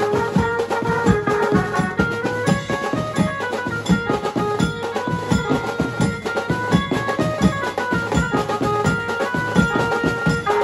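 Street procession band playing: bass drums and snare drums beating a steady, driving rhythm under a melody of held notes.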